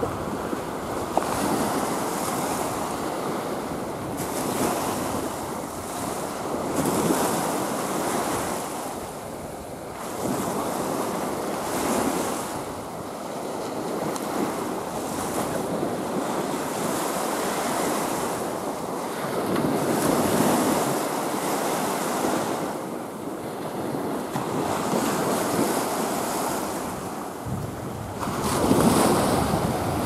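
Small sea waves breaking and washing up a sandy, shell-strewn beach. The surf swells and fades every few seconds, loudest near the end.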